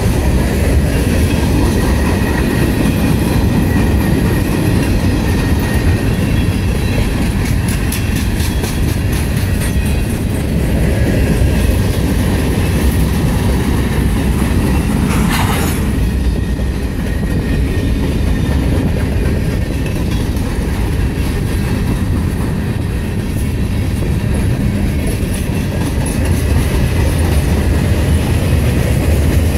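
Freight cars (covered hoppers, boxcars and tank cars) rolling past close by: a loud, steady noise of steel wheels on rail, with runs of rhythmic clicking as the wheels cross rail joints and one short sharp noise about halfway through.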